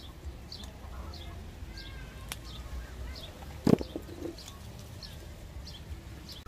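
A bird repeating a short, high, falling chirp at an even pace, about three chirps every two seconds, over a low rumble. A single thump a little past halfway through is the loudest sound.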